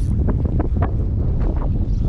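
Wind blowing hard across the microphone, a steady low rumble, with the choppy sea splashing close by in short, irregular splashes.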